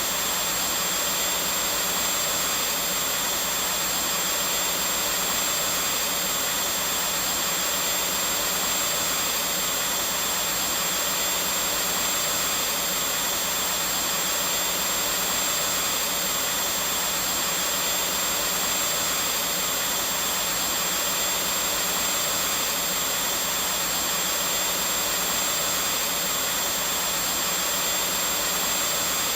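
Vacuum cleaner running steadily: an even, unchanging motor whoosh with a thin high whine.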